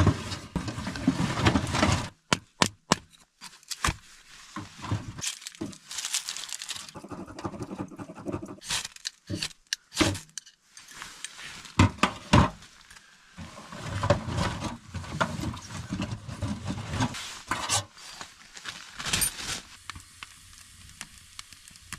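Irregular knocks, clacks and rustling of wet firewood being split and handled for a wood stove.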